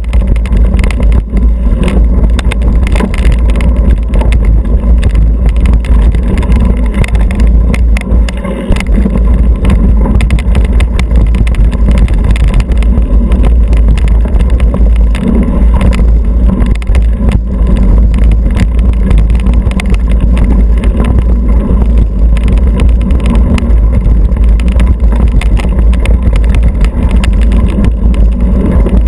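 Mountain bike ridden fast down a dirt singletrack: heavy wind buffeting on the microphone and tyre rumble, with frequent knocks and rattles as the bike goes over bumps and roots.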